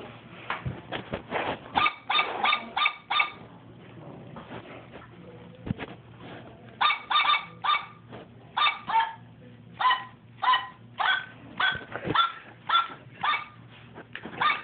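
A song made of dog barks: short yaps in quick rhythmic runs, stepping up and down in pitch like a tune. They stop for a few seconds about three seconds in, then start again.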